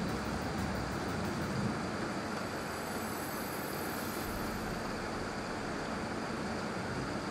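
Heavy rain pouring down in a night-time downpour, a steady, even hiss of rain.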